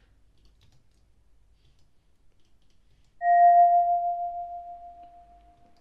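A glass bowl struck once like a bell, about three seconds in: a clear single tone with a brief higher overtone, ringing and slowly fading.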